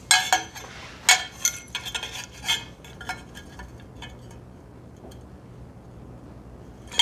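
Short steel tubes clinking and knocking against each other as they are handled, a handful of sharp, ringing clinks in the first two or three seconds, then only faint small knocks.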